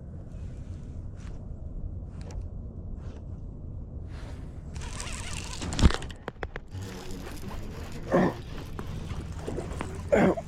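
Wind on the microphone with a low rumble, then about halfway through a burst of splashing and handling noise with one sharp knock against the jon boat, as a bass is landed.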